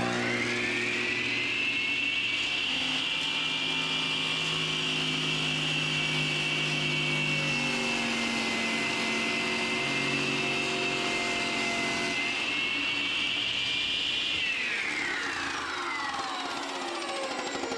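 iQ MS362 masonry saw running at full speed with a high steady whine, the pitch sagging for about four seconds in the middle as if under load in a cut. About 14 seconds in it is switched off and the whine falls steadily as the blade spins down.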